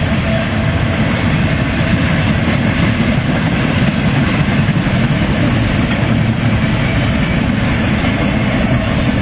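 BNSF intermodal container train rolling past: a steady rumble and rattle of cars and wheels on the rails.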